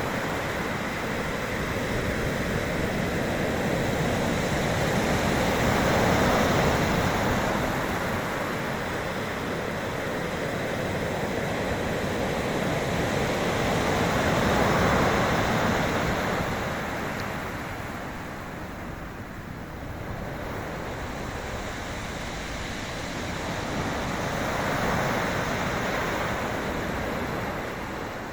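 Sea surf breaking and washing in, swelling and easing about every eight to ten seconds.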